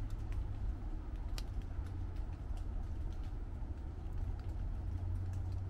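Light rain falling on the leaves of forest trees, individual drops ticking irregularly, over a steady low rumble.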